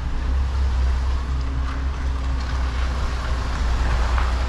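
MAN truck's diesel engine running at low revs with a steady low drone, heard from inside the cab as the articulated lorry creeps through a tight turn.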